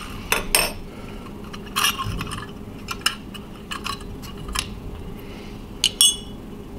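Broken pieces of a 5R4 rectifier tube's thick glass envelope clinking as they are handled and pulled away by hand: a scattered run of short, sharp glass clinks, the loudest pair near the end.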